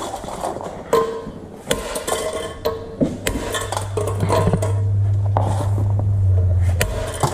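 Metal parts and tools clinking and knocking in a shop during cylinder head work, each strike ringing briefly. A low steady hum joins about three seconds in and stops shortly before the end.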